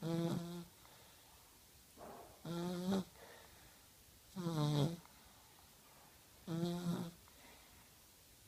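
A one-year-old child snoring in her sleep: four short snores about two seconds apart, each with a clear pitch.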